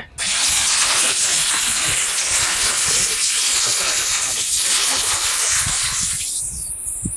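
A loud, steady hiss, like rushing air, that starts just after the speech stops and fades out after about six seconds.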